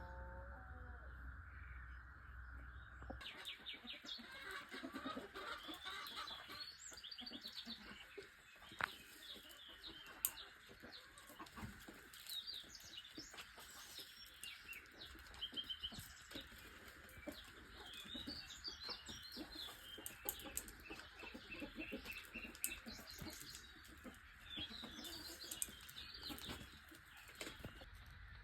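Chickens clucking among the chirps and trills of small songbirds, with a steady faint hiss underneath. About three seconds in, the background changes abruptly and the birdsong thickens.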